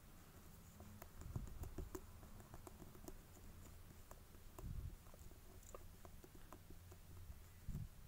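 Faint, scattered light clicks and a few soft bumps as a plastic modelling tool and fingertips press clay flat into a soft rubber mould, over a low steady hum.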